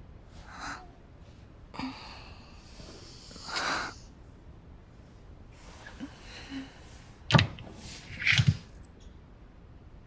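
Duvet and bedding rustling as someone tosses and turns in bed, with two dull thumps about a second apart near the end.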